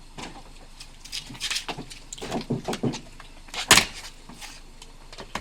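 Sledgehammer blows on a Renault Laguna being wrecked: a run of crunching metal-and-glass impacts, then one loudest strike near the end.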